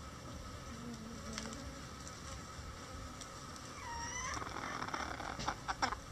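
Bantam chickens: a short, slightly rising call from one bird about four seconds in, followed by a few sharp clicks near the end, over a faint steady hum.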